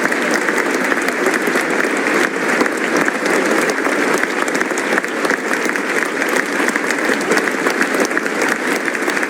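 Television game show studio audience applauding: a dense, steady clatter of many hands clapping at once, holding an even level without building or dying away.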